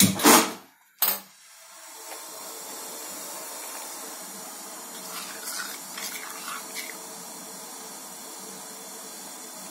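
A brief loud clatter, then a gas stove burner lit with one sharp click about a second in, after which the flame burns with a steady hiss. A few faint clinks come midway.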